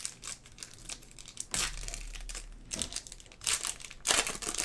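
Plastic wrapper of a Topps Chrome trading-card pack crinkling and tearing as it is handled and opened, in several short bursts, the loudest just past four seconds in.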